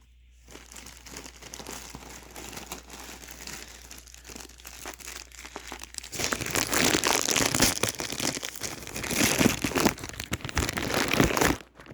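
Plastic packaging crinkling and rustling as accessories are pulled from their bag, louder in the second half and stopping suddenly near the end.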